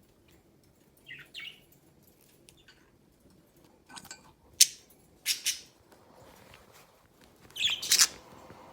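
Budgerigars chirping: a handful of short, sharp, high calls in small clusters, the loudest in the second half.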